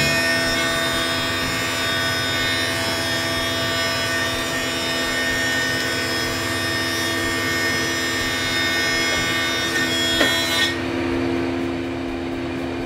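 Benchtop thickness planer cutting maple lumber: a loud, steady planing noise with a steady motor hum under it. About ten and a half seconds in, the board clears the knives and the hissing cut stops while the machine keeps running.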